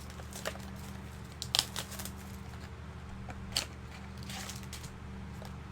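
Trading card mini box and cards being handled and opened: a few scattered crinkles and clicks, the sharpest about a second and a half in, over a steady low hum.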